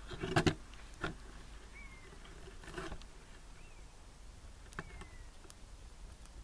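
Burning pine-resin torch in a beer can crackling with a few sparse, irregular pops and clicks, the loudest cluster in the first half second. A few faint short falling bird chirps sound in the background.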